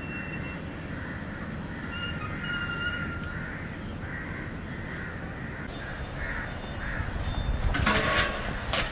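Crows cawing repeatedly over a low steady rumble. Near the end, a BMX bike hits a steel handrail and grinds along it: a loud metallic scrape lasting about a second, the loudest sound here.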